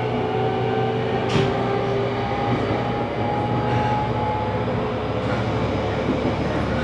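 Running noise of a JR Kyushu 813 series electric train, heard inside the passenger car: steady rumble with a whine that rises slowly in pitch and dies away about two-thirds of the way through. A single sharp knock comes about a second and a half in.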